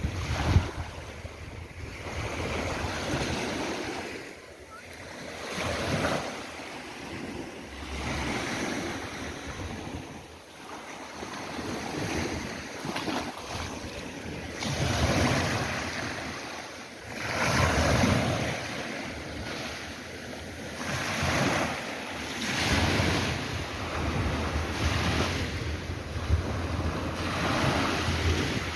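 Sea waves breaking and washing on the shore, the surf swelling and falling every few seconds, with wind on the microphone.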